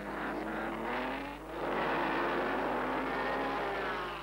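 Grand Prix racing cars passing at speed with their engines at high revs: a first pass fades about a second and a half in, then a second, louder one runs on and fades near the end.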